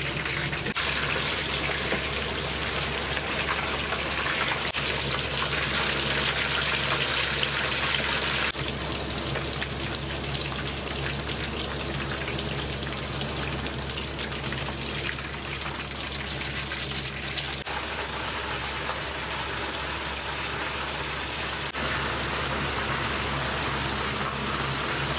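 Food sizzling steadily in hot oil as it fries, over a steady low hum; the sizzle changes level abruptly a few times.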